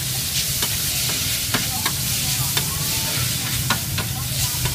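Noodles and vegetables sizzling in a hot wok while a metal spatula scrapes and taps the pan, giving a steady hiss broken by irregular sharp clicks of metal on metal.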